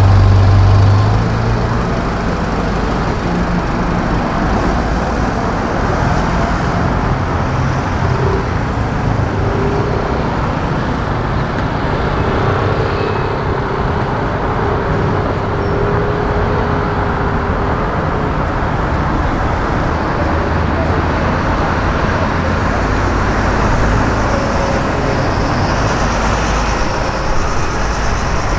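Steady road traffic noise from vehicles passing on a busy street. A loud low engine hum from a nearby vehicle drops away about a second in.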